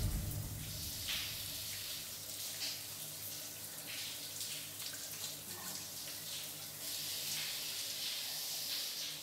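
A shower running: a steady hiss of water spraying from an overhead shower head, with brief swells every second or so.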